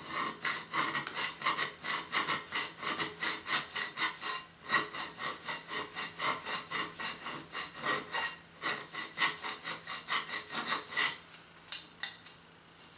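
Hand file rasping back and forth on the corner of a laser-cut metal plate, in quick, even strokes several times a second, stopping about eleven seconds in. The filing squares off the corner that the laser cutter left rounded, so that a linear rail can fit the plate.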